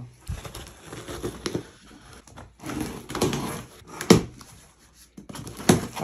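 Box cutter slitting the packing tape on a cardboard box and the flaps being pulled open, with rustling cardboard. There are two sharp knocks, one about four seconds in and one near the end.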